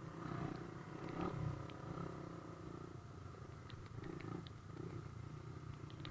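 Motorcycle engines running at idle or low revs, a steady rumble that swells and eases unevenly, with a few faint clicks.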